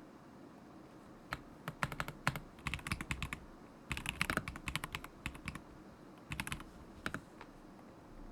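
Typing on a stock KZZI K75 Pro mechanical keyboard with Moment linear switches: quick runs of key clacks in three short bursts, with pauses between them.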